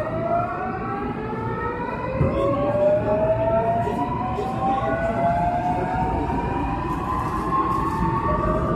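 Seoul Metro Line 8 train's inverter-driven traction motors whining as the train accelerates away from a station, several tones climbing steadily in pitch and stepping back down to climb again, over the rumble of the wheels on the rails.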